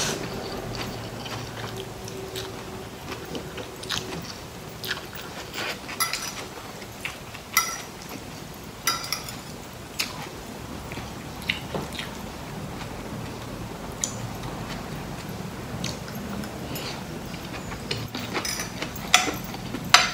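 Close-up eating sounds: a person chewing and slurping rice vermicelli noodles, with short clicks and taps every second or two from the fork and spoon against the plate.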